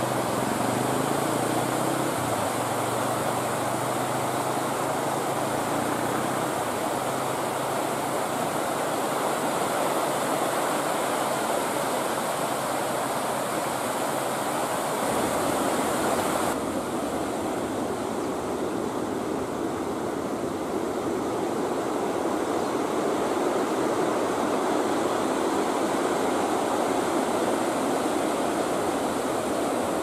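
River in flood rushing over rocks and a weir in a steady wash of water noise. The sound shifts about halfway through, with less hiss.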